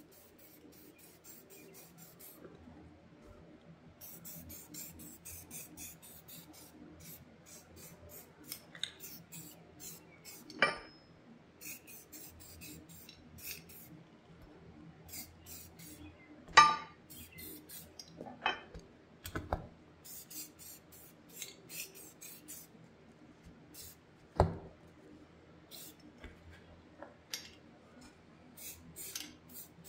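Aerosol spray-paint can hissing in repeated short spurts, in groups a few seconds apart, as steel brackets are coated. A few sharp knocks as the metal parts are handled, the loudest about two-thirds of the way through.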